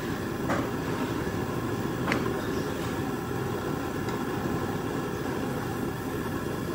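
Steady low rumbling background noise, with two short sharp knocks about half a second and two seconds in.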